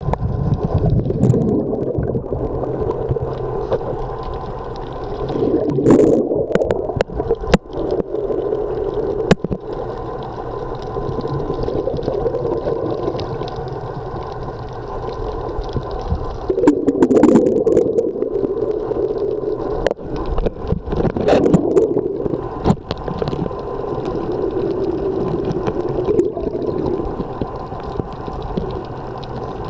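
Underwater sound of moving water, muffled and mostly low, swelling louder every several seconds, with scattered sharp clicks.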